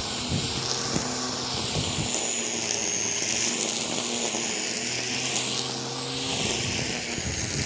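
BLACK+DECKER 3-in-1 corded compact lawn mower's electric motor running steadily while mowing tall grass, a constant whine with hiss. It cuts off abruptly at the end.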